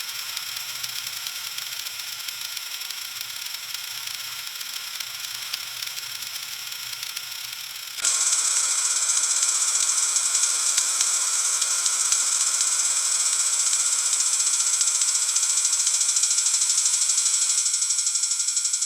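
Freezing rain ticking against a window pane: a dense patter of tiny clicks over a hiss, which grows abruptly louder and brighter about eight seconds in.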